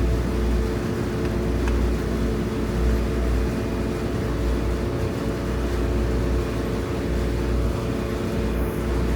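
Car engine idling steadily, a low, even hum.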